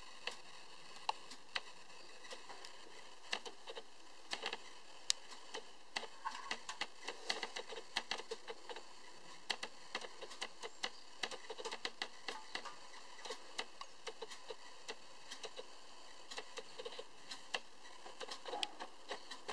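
Handling noise: irregular light clicks and taps over a faint steady hiss, thickest in the middle.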